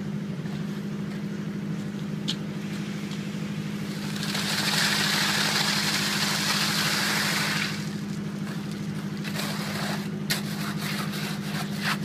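A motor or engine running steadily, with a rushing hiss lasting about three and a half seconds midway and a few short knocks.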